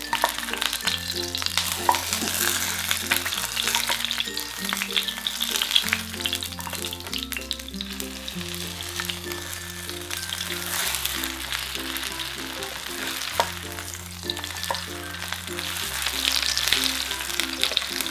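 Buchujeon (Korean chive pancake) sizzling in oil in a nonstick frying pan, with a plastic spatula tapping and scraping against the pan as the pancake is turned and pressed. Light background music with a plucked bass line plays underneath.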